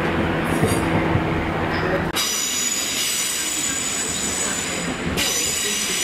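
A Class 150 diesel unit's engine drones steadily as it pulls away. About two seconds in, this gives way to a loud, high, many-toned wheel squeal from a GWR Intercity Express Train running into the platform.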